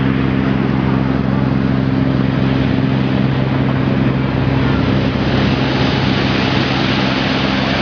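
Boat engine running steadily: a constant low hum over a rushing noise.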